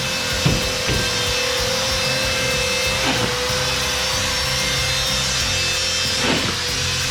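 High-speed drywall cut-out tool running steadily while routing drywall, its whine dipping in pitch a few times as it bites into the board, over background music.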